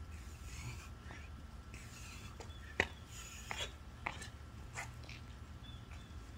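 A man breathing hard during burpees, with a heavy huffing exhale about once a second. There are sharp slaps on concrete a little under 3 seconds in and again about 4 seconds in as he lands, over a steady low hum.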